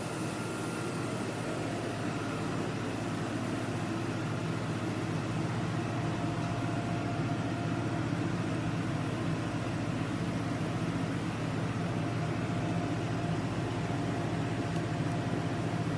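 A DMU 50 Evolution five-axis CNC machining centre running under power: a steady mechanical hum with a few faint steady tones above it, unchanging throughout.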